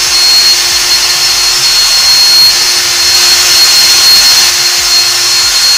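Electric drill with a metal drill bit running steadily, drilling out the metal lock cylinder of a vending machine; a constant high whine over a steady grinding noise.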